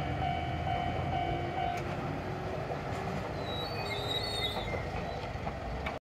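Japanese level-crossing warning alarm sounding a repeated electronic tone, about three beats a second, which stops about two seconds in. Underneath is the low running rumble of a departing Toyama Chihou Railway 10030-series electric train.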